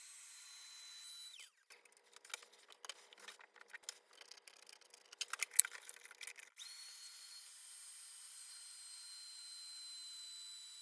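A small electric cleaning tool's motor runs with a steady whine and hiss, then winds down about a second in. For the next few seconds there are irregular sharp clicks and rattles of plastic keyboard parts being handled, the sharpest about five and a half seconds in. The motor starts up again after about six and a half seconds.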